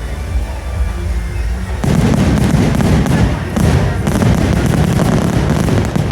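Fireworks show: music plays, then about two seconds in a dense, rapid barrage of fireworks bangs and crackles breaks out and stays loud.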